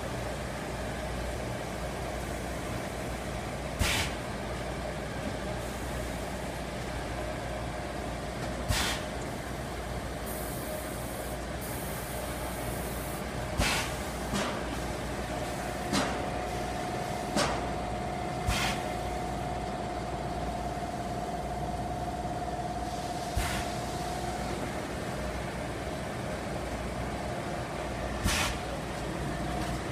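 Steady drone of feed pellet production line machinery running, broken by sharp clacks every few seconds. A steady whine joins in for several seconds in the middle.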